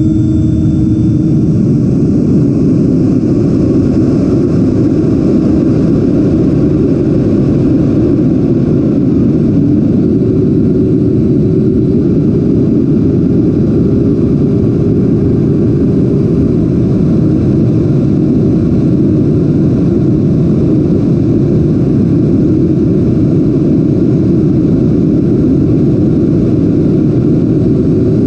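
Onboard audio of a Freewing A-10's 90mm electric ducted fan and the air rushing past the airframe in flight: a loud, steady rush with a low hum that shifts pitch a few times.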